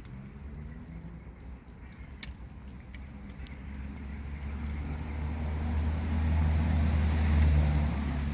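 A motor vehicle's engine hum drawing nearer, low and steady in pitch, growing louder over the second half and peaking near the end. Light rain ticks faintly in the first few seconds.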